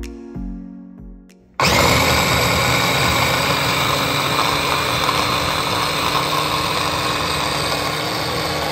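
Soft background music for about a second and a half. Then a Black & Decker electric food chopper's motor cuts in abruptly and runs steadily, its blade chopping shrimp with onion in the plastic bowl.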